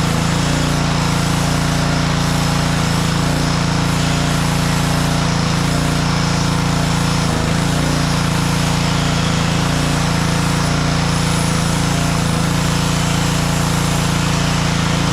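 A pressure washer running steadily: an even motor drone under the hiss of the high-pressure water spray.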